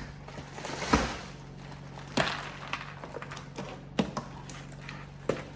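Packaging being handled and unwrapped, rustling and crinkling in about four sharp bursts over a steady low hum.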